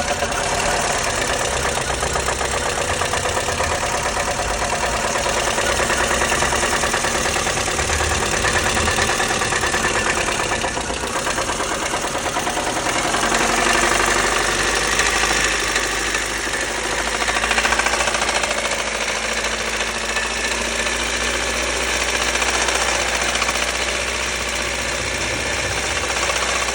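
Lada Kalina's eight-valve four-cylinder engine running with a fast, steady knock whose cause the owner does not know.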